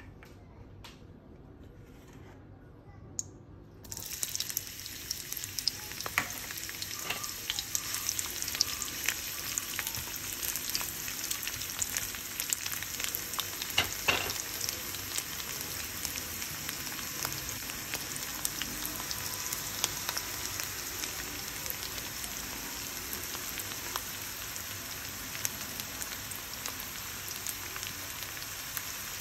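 Cooking oil in a wok heating quietly with a few faint ticks. About four seconds in, sliced onions go into the hot oil with a sudden sizzle, and they keep frying with a steady sizzle and scattered crackling pops.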